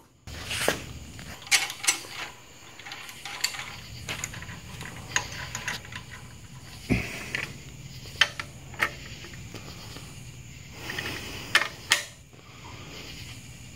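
Metal hand tools clicking and clinking against a Dana 30 front differential housing while it is being bolted up: irregular light knocks, with one heavier thump about seven seconds in.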